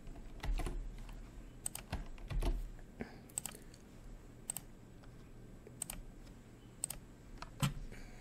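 Computer keyboard typing: short runs of keystrokes in the first few seconds, then single clicks about a second apart.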